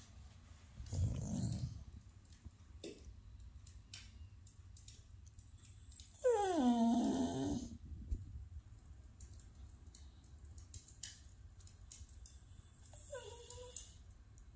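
Bulldog whining and grumbling to be let up onto the couch: one long moan that falls in pitch in the middle, and a shorter, fainter one near the end.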